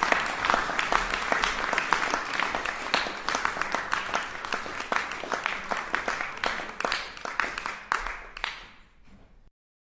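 Audience applauding, a dense patter of many hands clapping that thins out after about eight seconds and then cuts off suddenly.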